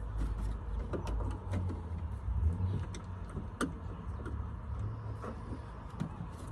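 Scattered light clicks and taps of hands and a small tool working at the inner door mechanism with the trim panel off, one sharper click about three and a half seconds in, over a steady low rumble.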